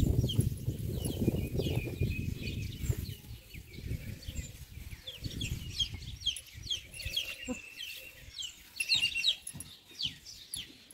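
Birds chirping busily, many short quick high chirps, with a low rumble under them in the first few seconds.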